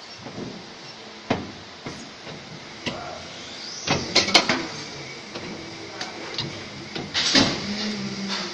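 Injection moulding machine working through a cycle on a lamp-lens mould: the mould opens and closes with metallic clicks and clunks. The loudest clunks come about four seconds in and again just past seven seconds, followed by a low steady hum.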